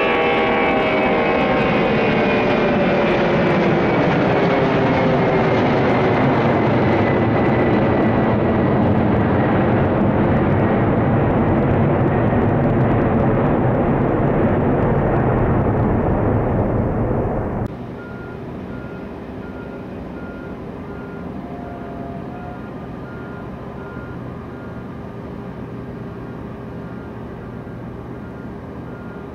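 Silk Way Ilyushin Il-76TD-90 jet engines, a loud roar with several whines that fall steadily in pitch as it moves away. About two-thirds of the way through it cuts off suddenly to a much quieter steady hum with a high electronic beep repeating about twice a second, like a vehicle's reversing alarm.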